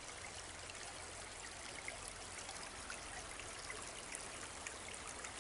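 Steady, faint rush of running water, with a few light ticks scattered through it.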